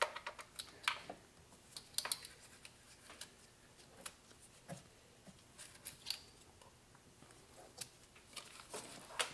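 Scattered, irregular light clicks and taps of hand tools and spark plugs being handled during a spark plug change.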